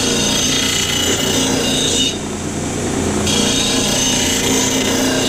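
Disc sander running with a steady hum while the end edge of a wooden door frame is pressed against the sanding disc twice, each pass a hiss lasting about two and a half seconds. Each pass takes a very light cut to flatten and smooth the edge.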